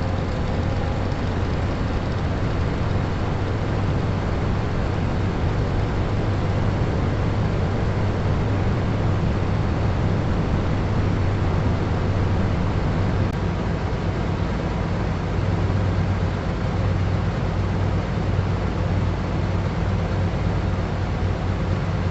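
Engine running steadily, a low drone with a constant hiss over it.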